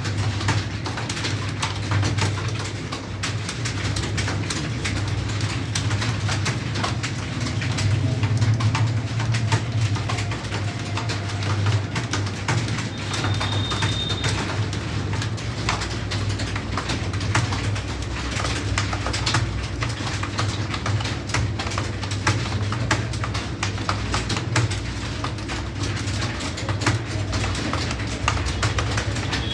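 Many computer keyboards clattering with fast, irregular keystrokes as several people type at once, over a steady low hum.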